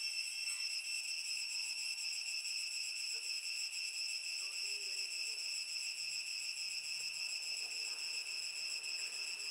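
Insects shrilling in a steady, high-pitched drone that holds without a break.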